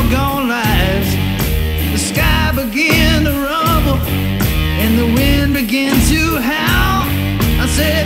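Rock music with a steady beat and a bending lead melody.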